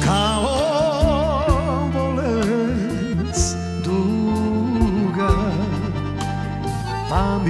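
Live band playing a slow Balkan ballad: a lead melody with wide vibrato slides in at the start and winds over steady bass, chords and drum hits, with a new melodic phrase sliding up near the end.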